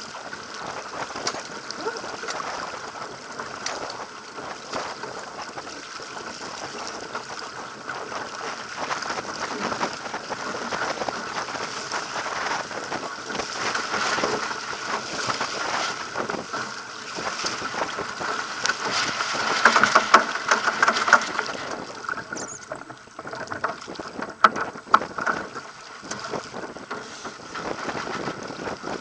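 Water rushing and splashing along a Pacer sailing dinghy's hull as it sails through chop, with wind buffeting the microphone. Louder splashes come about twenty seconds in and again a few seconds later.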